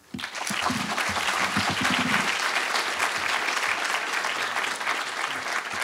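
An audience applauding, breaking out suddenly and holding steady, in response to a speaker's closing thanks.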